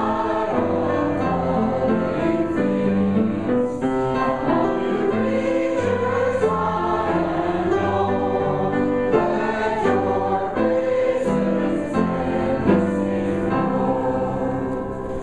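A church congregation singing a hymn together, many voices joined in sustained chords that move from note to note without a break.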